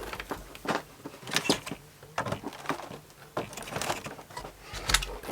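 Irregular light clicks and knocks from small parts and tools being handled.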